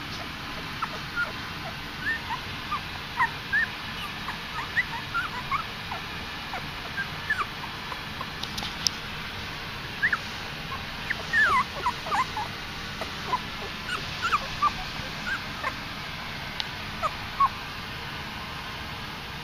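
A litter of two-week-old Miniature Australian Shepherd puppies whimpering and squeaking: many short, high squeaks scattered all through, over a steady hiss.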